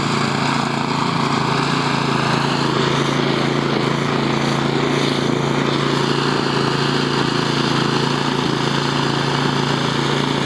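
Toro Power Max two-stage snow blower's engine running steadily while clearing snow, a constant engine drone with a rushing hiss over it.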